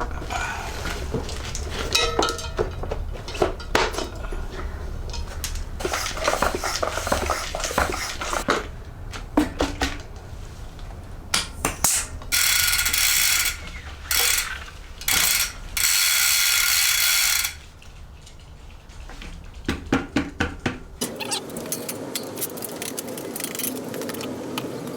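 Hand work on a mountain-bike wheel and tire: many sharp clicks and knocks, with a few loud bursts of hissing about halfway through.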